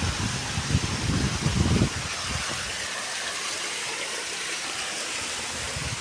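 Waterfall rushing steadily, with wind buffeting the microphone in low gusts for the first two seconds.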